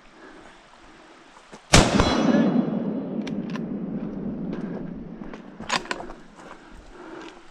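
A single loud gunshot about two seconds in, followed by a long rolling echo that fades over a few seconds, then several sharp clicks.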